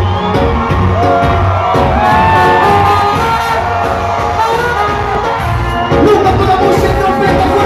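Live reggae band playing, with a trumpet over the bass, drums, guitars and keyboards, recorded from among the audience. Crowd voices and cheering come through the music.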